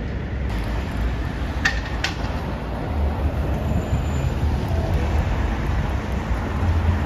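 Road traffic with an electric single-deck bus driving past close by: a steady low rumble of tyres and traffic. Two sharp clicks come close together a little under two seconds in.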